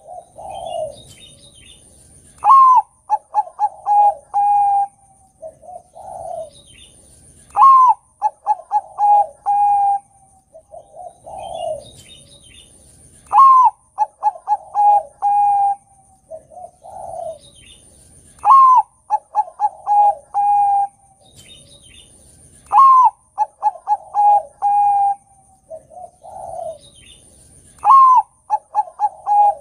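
Zebra dove (Bangkok-type perkutut) singing its cooing song over and over, about every five seconds: a low swelling coo, then a higher rising note followed by a run of short, quick coos.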